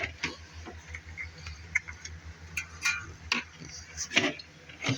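Scattered light clicks and ticks, a dozen or so at uneven intervals, over a low steady hum.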